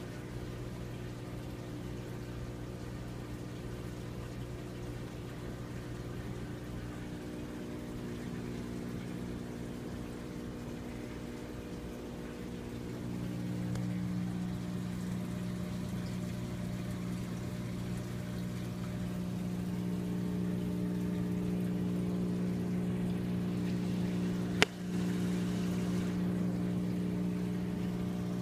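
Aquarium filter pump running: a steady electrical hum with water splashing and trickling, growing louder about halfway through. A single sharp click near the end.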